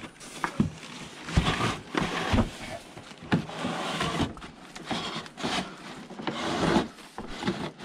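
Cardboard box and packaging being handled and pulled at: irregular rubbing and scraping with scattered knocks.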